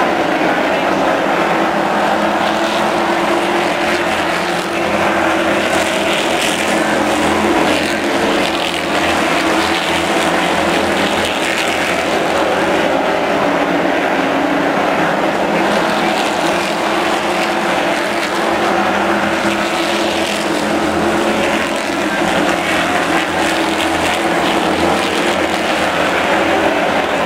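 Pack of late model stock cars racing on a paved oval, many V8 engines running at racing speed together in a loud, steady blend.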